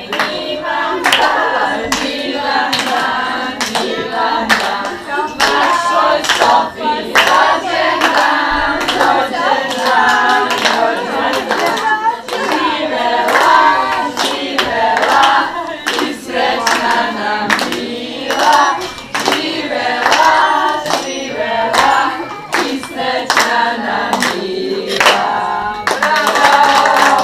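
A group of people singing a birthday song together in a small room, clapping along in time.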